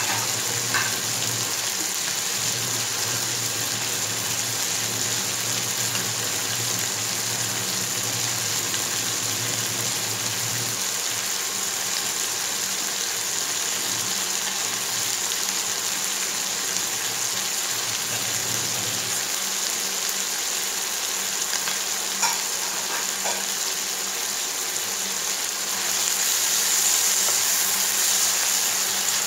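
Diced chicken breast, onion and peppers sizzling steadily in a frying pan, with a few light clicks. Near the end a wooden spatula stirs the pan and the sizzle grows louder.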